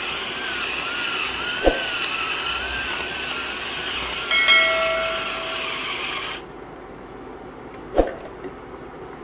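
Steady whirring hum with a wavering whine, like a small motor or fan running, that cuts off suddenly about six seconds in. A short bell-like chime sounds about four and a half seconds in, and there are sharp clicks before and after it.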